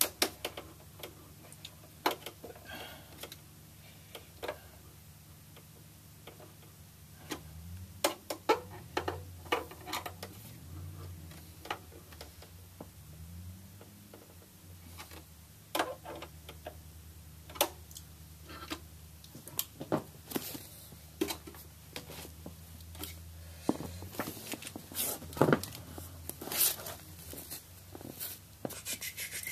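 Scattered small clicks and metal knocks of hands working inside an aluminium Mac Pro tower case, handling the PCI card bracket and its hand-tightened screws, over a faint low hum.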